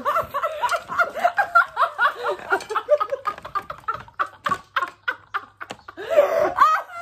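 Several young women laughing hard together, in overlapping bursts.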